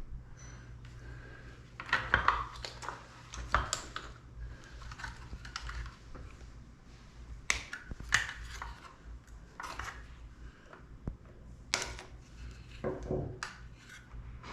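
Scissors snipping plastic wire ties, with scattered clicks and rustles of small plastic parts being handled: irregular sharp snaps a second or two apart.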